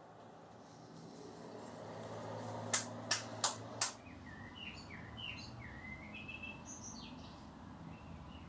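Four sharp clicks in quick succession, about three a second, then a small songbird chirping a run of short, quick notes that sweep down and up, over a low steady hum.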